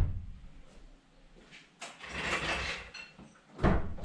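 Two loud thuds, one at the start and one near the end, with a short rattling clatter about two seconds in.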